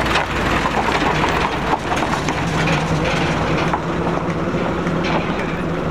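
Vehicle engines running loudly through modified exhausts, with a steady low engine note that grows stronger about two seconds in.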